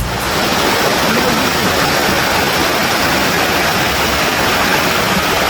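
Waterfall: water falling and rushing in a loud, steady, unbroken wash of noise.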